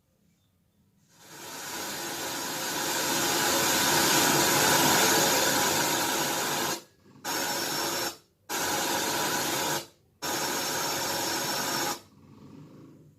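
Loud, steady hiss of noise spread evenly from low to high. It comes in about a second in, swells over a few seconds, then cuts out three times for a fraction of a second and stops abruptly near the end.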